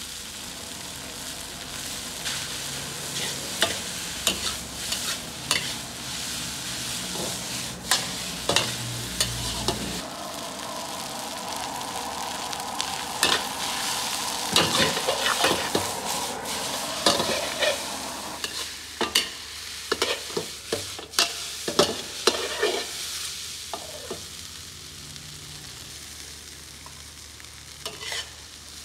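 Mackerel fried rice sizzling in a steel wok while a metal spatula scrapes and knocks against the pan in stir-frying. The clatter thins out over the last few seconds, leaving mostly the sizzle.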